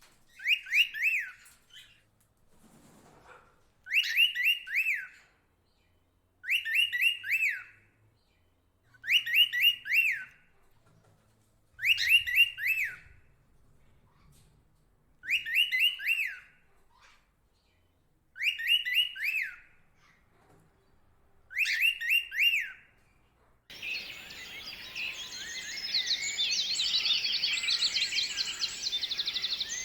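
A songbird repeating the same short phrase eight times, about every three seconds, each a quick run of high notes. About 24 seconds in it cuts abruptly to a dense chorus of many overlapping bird calls.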